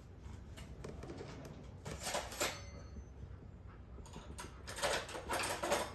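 Cutlery scraping and crunching through crispy-skinned salmon on a plate as the fish is cut open: two rough bouts, about two seconds in and again from about four and a half seconds.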